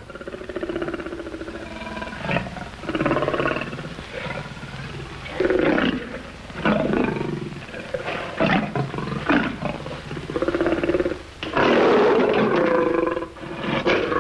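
A lion roaring again and again, one roar after another with short gaps between them.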